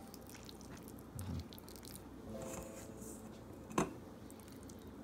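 Faint, wet squishing and sticky handling sounds of fingers pressing meat stuffing into raw chicken breasts, with one sharp click a little before the end.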